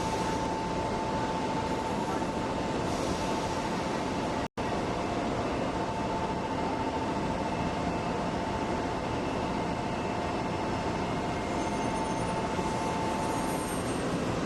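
A Shinkansen train's steady running noise at the platform, with a constant whine over the rumble, briefly cut off about four and a half seconds in.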